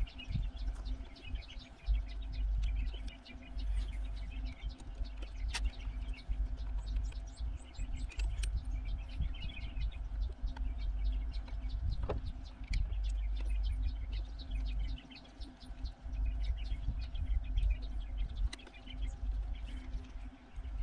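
Small birds chirping in quick, repeated calls over a low, uneven rumble of wind on the microphone.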